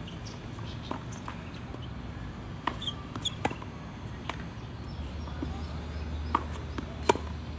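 Tennis ball being struck by rackets and bouncing on the court during a rally: a series of sharp pops at irregular intervals, the loudest about seven seconds in.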